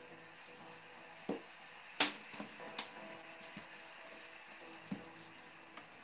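A handful of sharp clicks and knocks from a screwdriver on the CPU cooler's metal mounting-bracket screws, the loudest about two seconds in.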